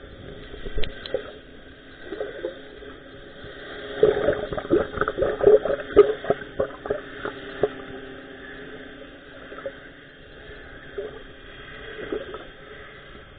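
Muffled underwater sound picked up by a camera below the surface: a steady low hum with scattered bubbling and knocks, busiest in a run of quick gurgles from about four to eight seconds in.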